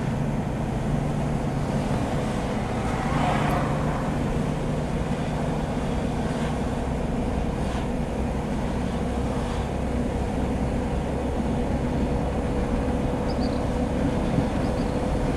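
Car driving slowly along a road: a steady engine hum and road noise throughout.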